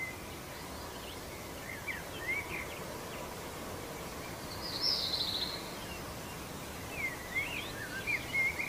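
Outdoor ambience: a steady low background hiss with small birds chirping, short quick chirps scattered through it and one buzzy trill about five seconds in.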